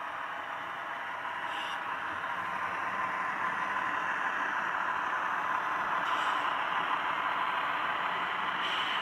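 HO scale model ballast hopper cars rolling along the track on a curve: a steady rolling noise of many small metal wheelsets on the rails, growing slightly louder, with a few faint ticks.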